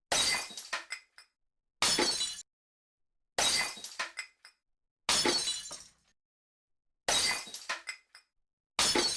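Glass smashing: six separate smashes about one and a half to two seconds apart. Each is a sudden crash that dies away within about a second, with a few scattered tinkles of shards after it.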